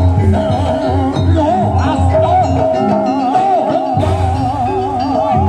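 Jaranan Buto gamelan music: a wavering high melody line over steady low drum beats and held lower tones.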